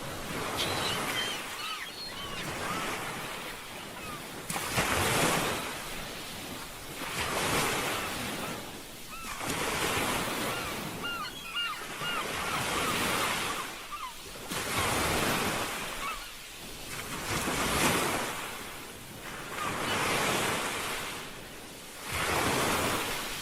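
Sea waves breaking and washing on a shore, surging and falling away every two to three seconds. A few short, high bird chirps come near the start and again about halfway through.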